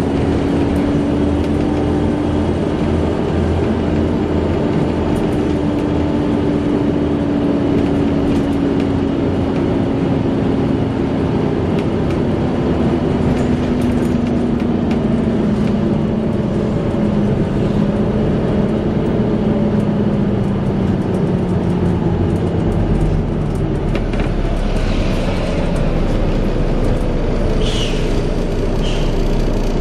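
Volvo B7TL bus's engine cooling fan making its vacuum-cleaner-like 'hoover' whine, winding down with its tone slowly falling, over the running diesel engine. A deeper low hum from the engine comes in about 23 seconds in.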